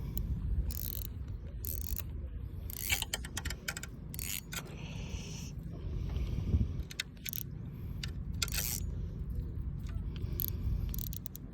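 Fishing reel working in short, high-pitched mechanical bursts, several times over a steady low rumble.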